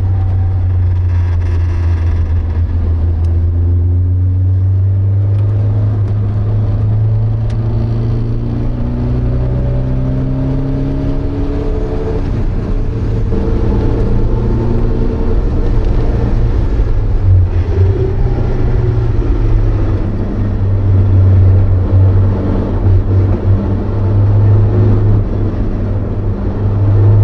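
Porsche 924's 2.0-litre four-cylinder engine heard from inside the cabin on track, pulling under load with its note climbing, dropping at a gear change about halfway through, and climbing again.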